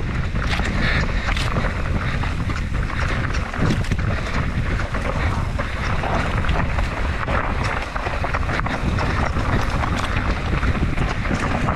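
Enduro mountain bike descending fast over rough trail: wind buffeting the microphone, with tyres rumbling and frequent sharp rattles and clicks from the bike.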